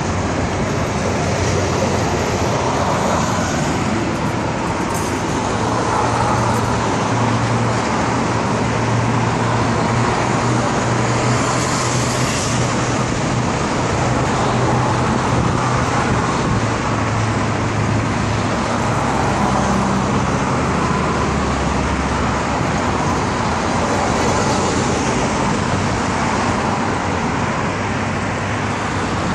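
Steady urban road traffic: cars and a truck passing on a bridge and nearby roads, a continuous rush of tyres and engines with no single car standing out.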